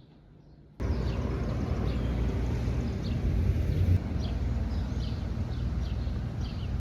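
Outdoor ambience that starts suddenly about a second in: a steady low rumble with short, high chirps repeating about twice a second.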